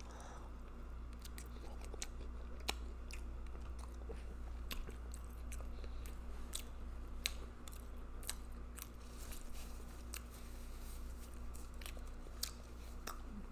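Close-miked chewing of seafood boil, with wet mouth smacks and clicks coming irregularly, over a low steady hum.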